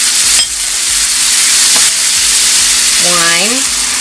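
Shrimp, garlic and butter sizzling loudly in a hot sauté pan, the sizzle flaring up in the first seconds as lemon juice is poured in.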